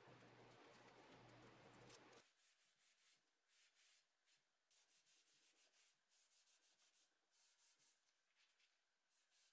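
Painter's tape peeling off a wooden dresser top as a steady rustling hiss that stops abruptly about two seconds in, followed by faint, irregular soft strokes of a hand and cloth rubbing a finish into the bare wood.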